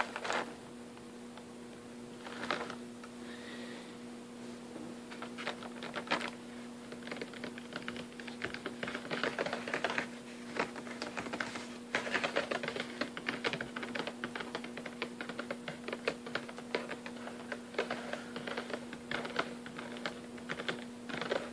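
Fingertips and nails tapping and scratching on a cardboard gift box with a clear plastic window. There are a few scattered taps at first, then quick, dense tapping from about a third of the way in, over a faint steady hum.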